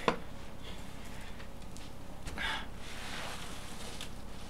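Handling noises: a sharp click just after the start, then a brief rustle about two and a half seconds in, over a faint steady low background.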